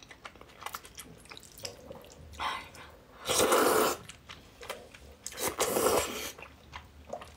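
A person slurping noodles from a spicy soup: three loud slurps, the longest and loudest about three seconds in and another near six seconds, with small wet mouth clicks between.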